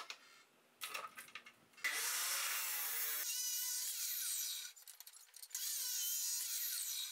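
Abrasive chop saw cutting steel bar: the disc grinds through the metal in two stretches of a few seconds each, with a short break between. A few knocks of the bar being set in place come before the first cut.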